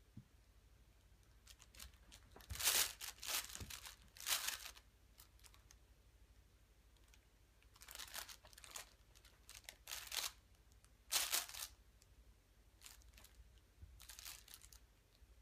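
Fabric cat play mat rustling in several short, irregular bursts as a cat paws, rolls and wrestles with it and its feather toys.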